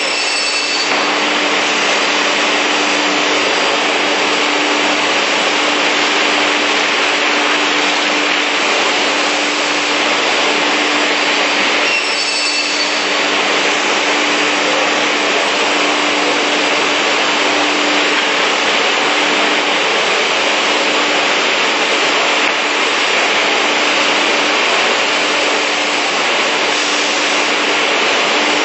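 Beam saw with an 11 kW saw motor running steadily: a loud, even rushing noise over a low steady hum, with no break.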